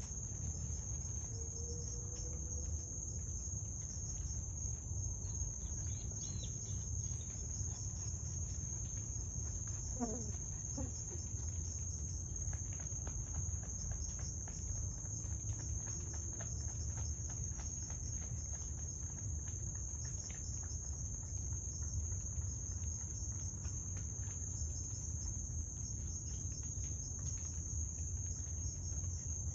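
A steady chorus of crickets trilling: one continuous high-pitched tone that never breaks, over a low steady rumble.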